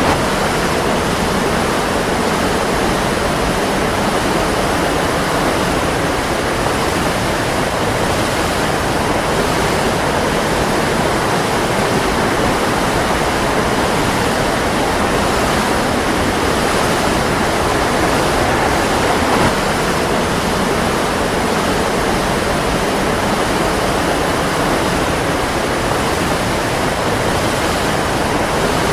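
A waterfall, its water falling in a steady, unbroken rush.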